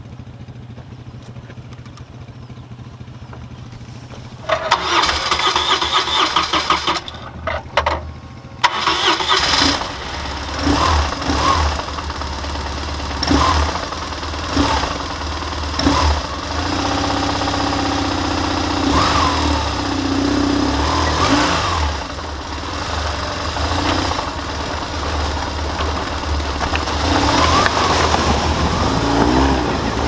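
BMW R1150GS motorcycle engine being started: a couple of seconds of cranking about five seconds in, a short break, then it catches and runs. It idles with several rising and falling blips of the throttle, then pulls away near the end.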